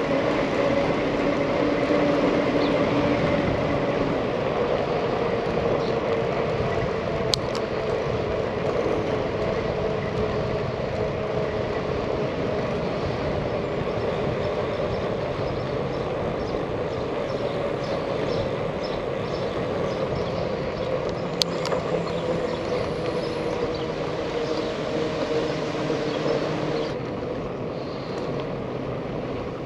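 Bicycle riding on asphalt: a steady rush of wind and tyre noise, with a low hum that drifts in pitch as the speed changes and a couple of sharp clicks. It turns quieter and duller near the end.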